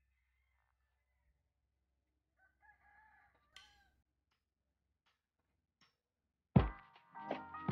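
A rooster crowing faintly, one crow lasting about a second. Near the end, loud music starts abruptly.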